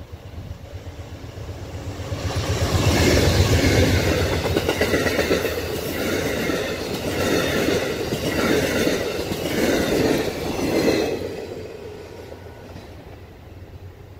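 Amtrak passenger train passing at speed: the diesel locomotive's rumble swells about two seconds in, then the cars' wheels clatter over the rail joints in repeated groups, about one a second, as each car goes by, and the sound fades away near the end.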